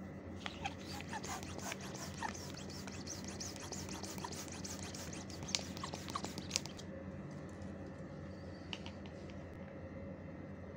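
Latex balloons being handled by hand: rubber rubbing and scratching with sharp clicks and short squeaks for about six seconds, then stopping, with a couple of clicks later. A steady low hum runs underneath.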